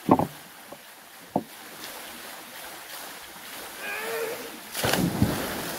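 Water running off a concrete pool slide into the pool, with a couple of sharp knocks in the first second and a half and a short shout about four seconds in. Near the end a louder rush of splashing starts as a person slides down into the pool.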